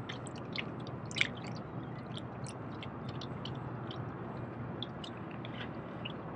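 Daiwa Luvias spinning reel wound slowly and steadily, a soft continuous whirr, with small irregular clicks and drips of water lapping among the shore rocks.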